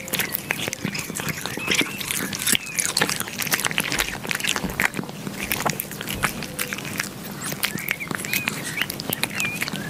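Two kittens chewing chicken: a fast, continuous run of wet clicks and smacks.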